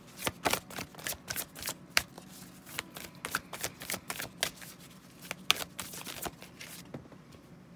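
Moonology oracle cards being shuffled by hand: a rapid, irregular run of card snaps that stops near the end.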